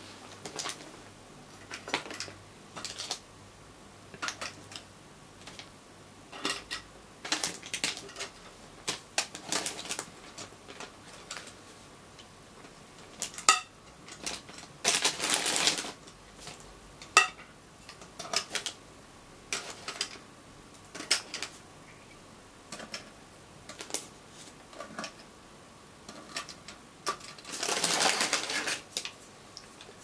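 Metal elevator push-button inserts (HM25 fixtures) being handled and fitted back into an aluminium panel frame: scattered clicks and light clinks of metal parts, with a couple of longer clattering rattles, one about halfway and one near the end.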